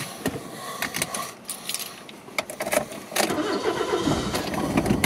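Clicks and rattles of a seatbelt being buckled and car keys being handled, then the car's engine starts about three seconds in and settles into a steady idle.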